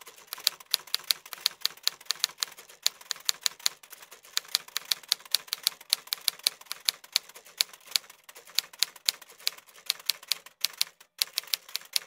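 Manual typewriter keys striking in quick, uneven runs, several clacks a second, with a few short pauses.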